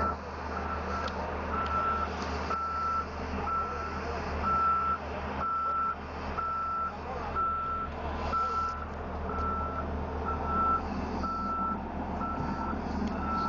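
Reversing alarm on a heavy paving vehicle beeping steadily, about once a second, as the vehicle backs up, over the low hum of its diesel engine.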